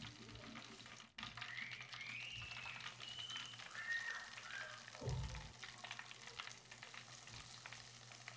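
Flour-coated chicken frying in hot cooking oil: a dense sizzling crackle as the battered piece goes into the oil and the oil bubbles up around it. A low knock about five seconds in.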